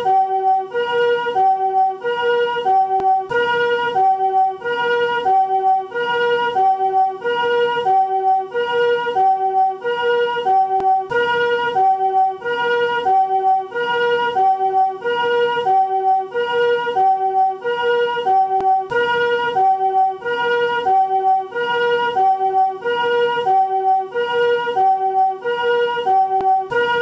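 Japanese ambulance chord-type 'comfort' siren sounding its two-tone hi-lo call. Two soft, chord-like tones alternate evenly, about a second and a quarter per high-low pair.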